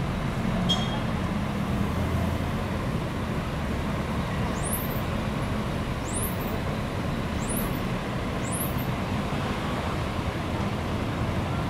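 Diesel coach bus engine running steadily at idle, a low, even hum. Four short, high rising chirps sound about a second and a half apart in the middle.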